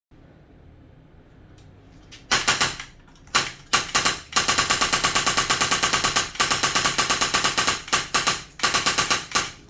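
Polarstar Kythera HPA-powered SR25 airsoft rifle firing rapid shots, the first short strings starting a couple of seconds in and then an almost unbroken rapid string with a few brief pauses.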